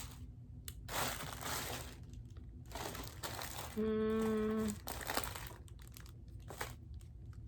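Plastic packaging crinkling in several short rustles as jewelry is handled. About halfway through, a steady pitched hum lasts just under a second.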